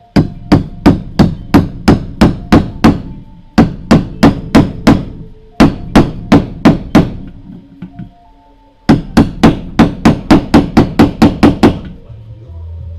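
Hammer blows in four quick runs of about three strikes a second, each strike sharp with a short ring; the last and longest run comes faster.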